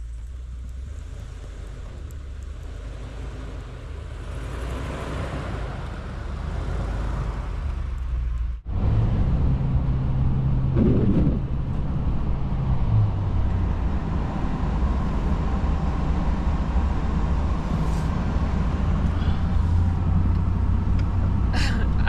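Pickup truck engine running in deep snow, heard first from outside and growing louder; after a sudden cut it is heard from inside the cab as the truck drives. The engine revs up briefly about halfway through, then settles.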